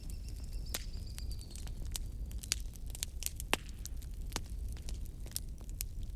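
Wood fire in a fireplace crackling, with irregular sharp pops over a low rumble of the flames. A faint high whistle slides slowly down in the first couple of seconds.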